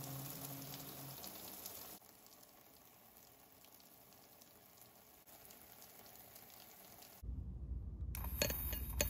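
Shower water spraying onto the shower floor, a steady hiss that turns quieter about two seconds in. Near the end it gives way to a low rumble with a few sharp clicks.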